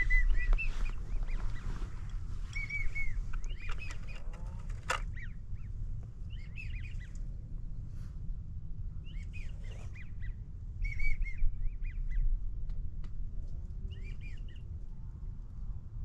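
American wigeon whistling: short clusters of two- and three-note whistles, repeated every few seconds, over a low steady rumble. A single sharp click about five seconds in.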